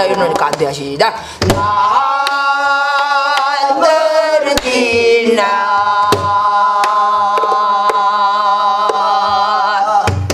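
A woman singing gueum, Korean wordless vocables that imitate an instrumental melody, in long held notes with a wavering vibrato and short breaks between phrases. She keeps the beat with sharp strokes of a stick on a buk barrel drum.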